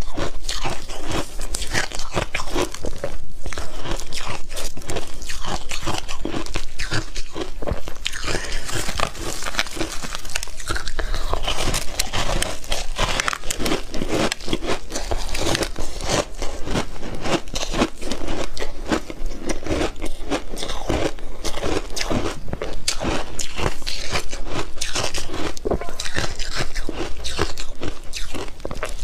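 Purple frozen ice being bitten and chewed in big bites: a dense, continuous run of sharp crunches and cracks.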